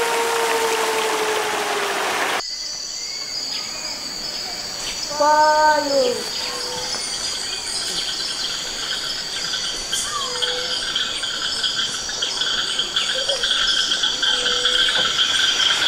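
Water rushing over a small rainforest cascade, which stops abruptly about two seconds in and gives way to rainforest ambience: several steady, shrill insect choruses. About five seconds in there is one short, loudest call that rises and falls, and a few faint chirps follow.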